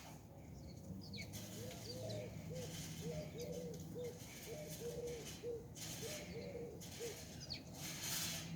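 Dove cooing: a run of short, low, arched notes repeated over several seconds, with a few thin high chirps from small birds and several brief rushes of noise.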